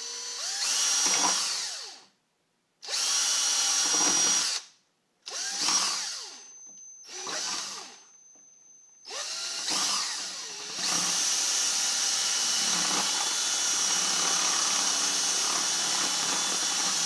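Power drill boring holes through a plastic food container, widening an opening so a wire connector can pass through. It runs in several short bursts with pauses and a rising whine as it spins up, then runs steadily through about the last six seconds.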